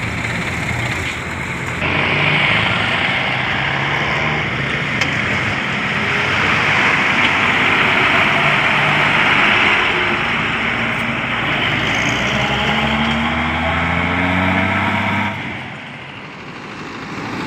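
A truck engine running close by, growing louder about two seconds in. Its pitch climbs as it revs up over several seconds, then the sound drops away suddenly near the end.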